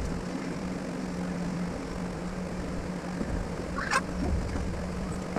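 A steady low mechanical hum, with one short sharp click or scrape about four seconds in.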